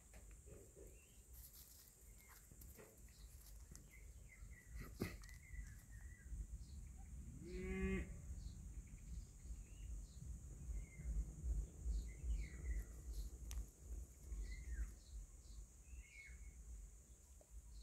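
Outdoor ambience: small birds chirping now and then over a low, uneven rumble, with one short, low animal call that rises in pitch about eight seconds in.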